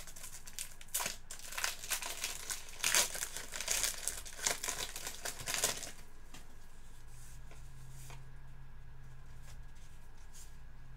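Plastic trading-card pack wrapper crinkling and tearing as it is worked open with difficulty, in a run of sharp crackles that lasts about six seconds.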